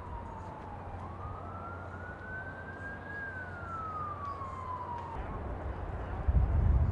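Emergency vehicle siren wailing in one slow rise and fall of pitch that stops about five seconds in, over a steady low hum. A louder low rumble starts near the end.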